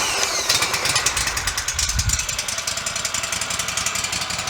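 Woodmizer LT15 Go sawmill's engine running steadily just after starting, cold and warming up, with a fast even firing rhythm. A brief falling whine sounds in the first half second.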